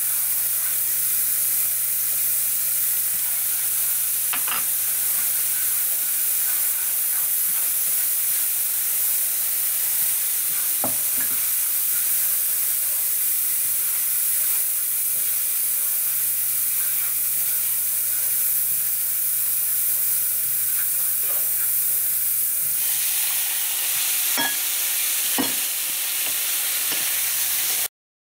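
Food sizzling steadily in a hot oiled nonstick frying pan as chopped aromatics and bread crumbs are stir-fried, with a few sharp taps of the wooden spatula and chopsticks against the pan. The sizzling cuts off suddenly near the end.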